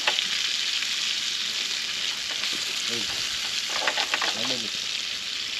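Fish frying in hot oil in a pan: a steady sizzle with scattered small crackles.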